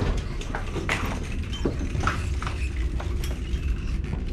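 Footsteps on a tiled floor and handheld-camera handling noise over a steady low rumble, with scattered light clicks.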